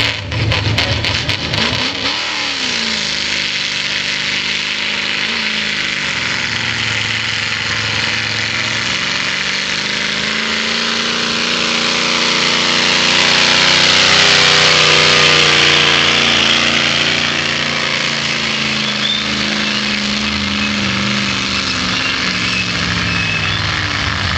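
Toyota Land Cruiser pickup engine running hard under load as it drags a weight-transfer sled in a tractor pull. The pitch wavers slowly, and it grows louder with a rushing hiss to a peak about midway as the truck comes close.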